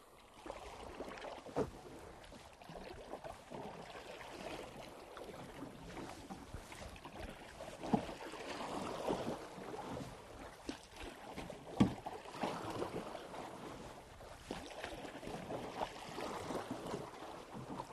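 Canoe paddle strokes in calm water as a solo canoe is spun in place with a sweep stroke and a cross draw stroke: repeated swishes and splashes of the blade through the water, with a few sharp knocks.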